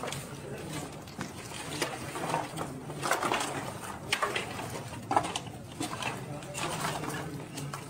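Firewood logs knocking and clattering irregularly as they are handled and stacked onto a cremation pyre, over a low murmur of voices in the crowd.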